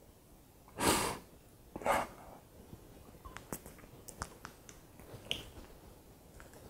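A man's two sharp breaths, about a second and two seconds in, followed by small mouth clicks as he holds back tears.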